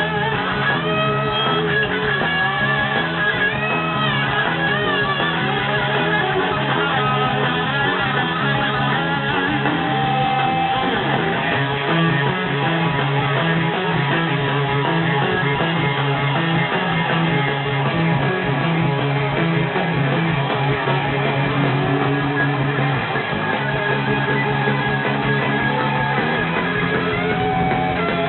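Rock band playing live: an electric guitar lead with notes sliding up and down over a steady bass line.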